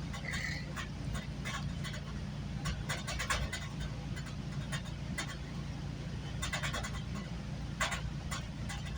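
Train ride noise inside a GO Transit passenger coach: a steady low rumble and hum, with short bursts of rattling clicks every second or two.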